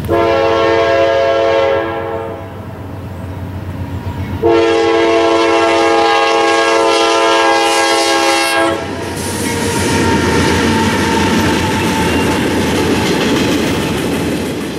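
A CSX diesel freight locomotive's multi-chime air horn sounds a blast of about two seconds, then a long blast of about four seconds, as the train nears and occupies a grade crossing. From about nine seconds in, the locomotives and freight cars roll past with a steady rumble and the clickety-clack of wheels over rail joints.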